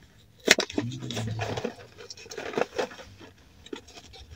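A cardboard candy box of Whoppers malted milk balls being opened by hand: a sharp snap about half a second in, then scraping and crinkling of the cardboard with small clicks.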